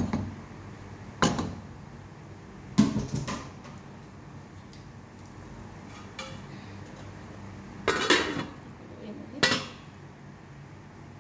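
Cookware clanks: a stainless steel pot lid and a wooden spatula knocking against a red cooking pot as the lid goes on. About five separate clanks, some in quick little clusters, the loudest about three seconds in and around eight seconds in.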